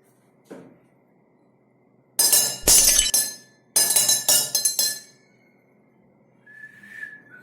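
Glass clinking and breaking: a rapid series of sharp crashes with ringing, lasting about three seconds, then a fainter ringing sound near the end.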